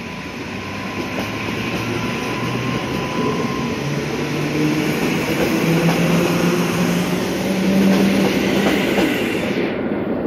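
Electric multiple unit pulling away from the platform below, its traction motors whining in steps that rise in pitch as it gathers speed, over the steady running noise of wheels on rail. The sound grows louder as the cars pass underneath.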